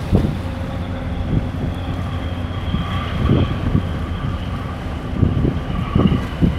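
Wind buffeting the microphone in repeated gusts, over the steady drone of a boat's engine with a faint steady whine, on choppy open water.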